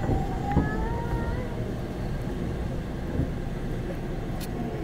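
Steady low rumble of a subway train running, heard from inside the carriage, with a faint rising whine in the first second and a half and a short click near the end.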